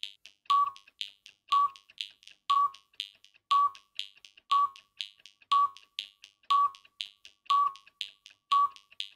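Film-leader countdown sound effect: a short beep with a click once a second, with several fainter quick clicks between each beep.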